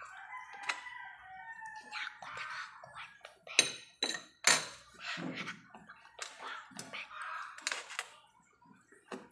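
A rooster crowing for about the first two seconds, followed by a run of sharp clicks and taps, the loudest between about three and a half and five seconds in.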